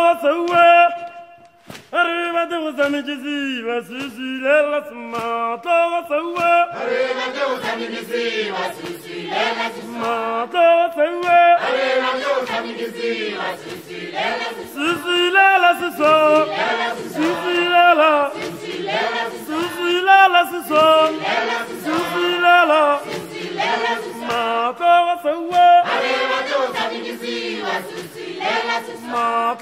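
Background music: a choir of several voices singing together in harmony.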